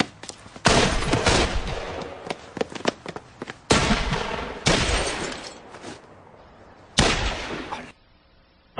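Gunfire in loud bursts of shots that start suddenly and die away: one about half a second in, others near four and five seconds, and a last one about seven seconds in. A short silence follows near the end.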